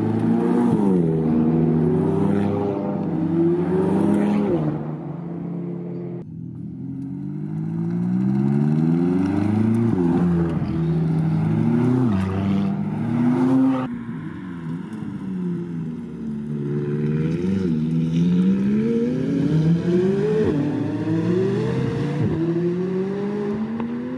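McLaren Sports Series supercar's 3.8-litre twin-turbo V8 accelerating hard, its pitch climbing and then dropping sharply again and again through the gear changes. The sound changes abruptly twice, at about 6 and 14 seconds.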